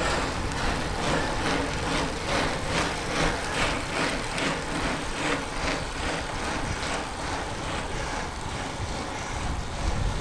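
Steady wind rush and road rumble on the microphone of a road bike riding along a paved road, pulsing faintly about two to three times a second.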